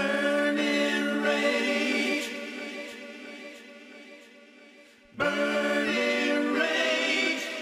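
Wordless choir-style voices holding sustained chords with vibrato, the opening of a song. The first chord fades away over about four seconds, and a second swell of voices comes in about five seconds in.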